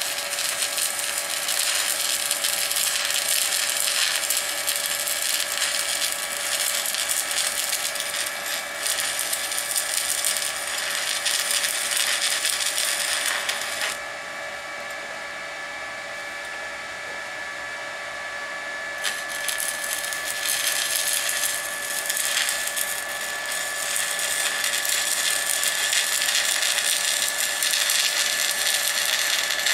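Stick (MMA) welding arc crackling and sizzling steadily as a small inverter welder set to 102 amps lays a bead on steel plate. For several seconds midway the crackle thins and quietens, then comes back at full strength.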